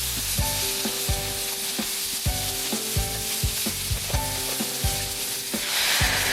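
Food sizzling as it fries in a pan, the sizzle growing louder near the end. Background music with held notes and a beat plays underneath.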